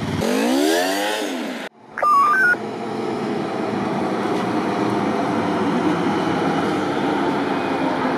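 Sport motorcycle engine revving as it rounds a bend, its pitch rising and then falling before cutting off abruptly, followed by a short electronic beep of a few stepped tones. After that, a Volvo semi-truck's diesel engine runs steadily with road noise as the truck pulls its flatbed trailer toward the camera.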